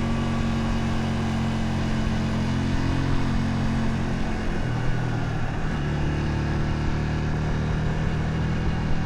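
Honda Shadow 125's small V-twin engine running steadily while riding; its note drops about halfway through, then holds at the new pitch.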